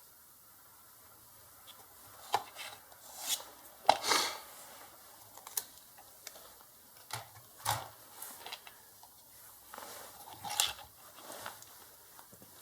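Small hard tools and a circuit board being handled on a workbench: irregular sharp clicks, taps and short scrapes, the loudest a sharp click about four seconds in, from desoldering and removing a capacitor from a board.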